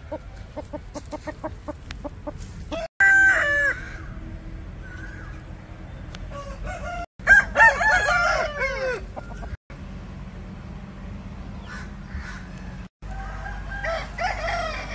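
Roosters crowing in separate short clips cut one after another: a brief crow about three seconds in, a long loud crow near the middle that falls in pitch at its end, and another crow near the end. The first three seconds hold a chicken clucking rapidly, several short clucks a second.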